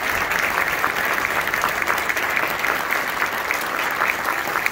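Audience applauding steadily, many hands clapping at once for a string orchestra taking its bow.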